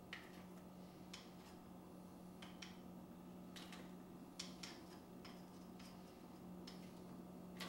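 Irregular light clicks and taps of small parts and tools being handled at a workbench, over a steady low hum.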